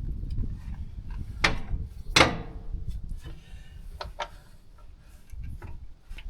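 Sharp metal knocks and clanks of hand tools on the combine's hydraulic pump mounting bolts. The two loudest come about a second and a half and two seconds in, with a few smaller taps later, over a low rumble.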